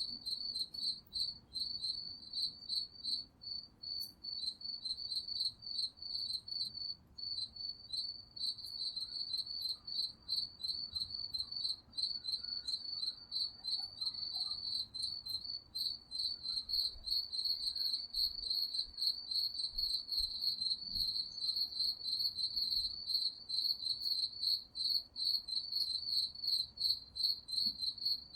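Cricket chirping without pause: a high-pitched trill of rapid, evenly repeating pulses.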